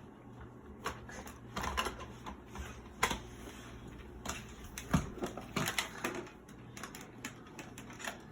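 Plastic parts of a cordless stick vacuum being handled and opened: a series of irregular clicks, snaps and knocks.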